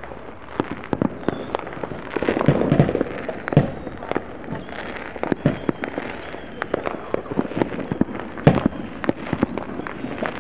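Distant fireworks and firecrackers going off across a town: a steady scatter of pops and bangs, with a dense crackling run about two seconds in and a single louder bang about eight seconds in.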